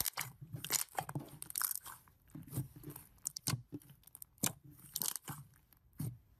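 Slime being pressed and squeezed by hand, giving irregular crunchy crackles and sharp pops in clusters.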